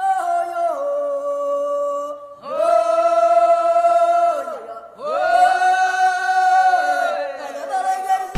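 Intro music of choir-like voices singing long held notes in three phrases, the first stepping down in pitch about a second in, with short breaks between phrases.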